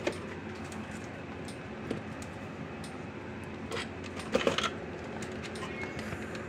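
Small tools and a spool of desolder braid being handled and set down on a wooden workbench: a few light clicks and taps, with a short cluster about four and a half seconds in, over a faint steady hum.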